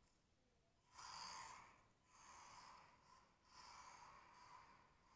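Faint whirring hiss from a 1/24-scale RC drift car's small electric motor and tyres on a tile floor. It swells and drops with the throttle in about four bursts of a second or so each, after a near-silent first second.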